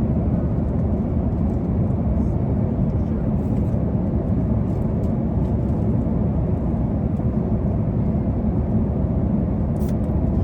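Steady low rumble of a moving vehicle, an even noise without a clear engine tone.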